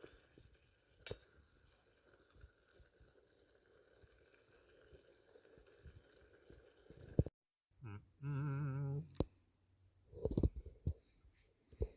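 Faint quiet background with a few small clicks, then after an abrupt cut a person's brief hummed 'mmm', about a second long, followed by a few knocks and clinks of camp cookware.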